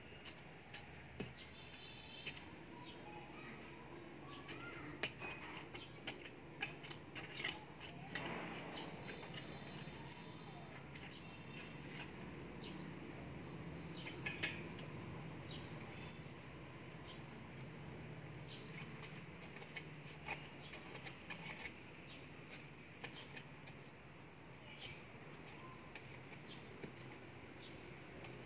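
Small hand tool digging and scraping in loose garden soil: irregular scratchy scrapes and light clicks.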